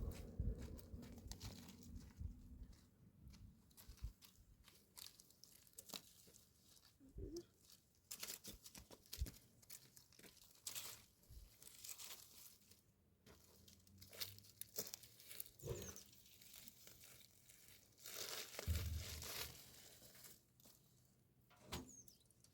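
Faint rustling and crinkling handling noise, with scattered small clicks and knocks. A louder, deeper bump comes near the end.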